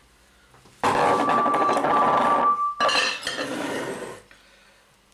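A small kitchen knife sawing into a pineapple to cut a ring, rasping and scraping against the surface beneath in two stretches, the first with a thin steady squeal through it.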